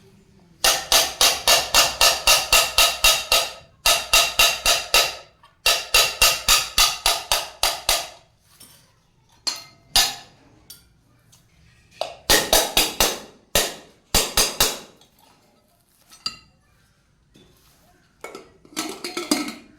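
A hammer striking metal in quick, even runs of about four or five blows a second, each blow ringing. Several runs last a few seconds each, with pauses and a few single strikes between them.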